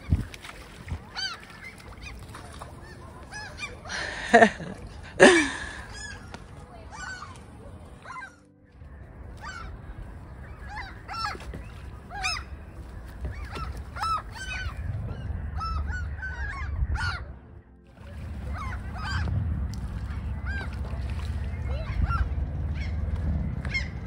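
Gulls calling over water as they swoop down for food: many short overlapping calls throughout, with two loud close calls about four and five seconds in.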